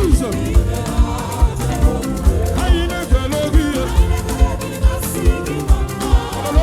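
Upbeat live band music with a steady, driving drum beat and a melodic lead line gliding up and down in pitch.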